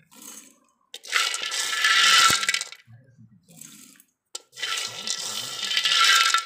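Roasted, skinned peanuts dropped by the handful into a stainless steel mixer-grinder jar, rattling against the metal. Two pours of about two seconds each: the first about a second in, the second near the end.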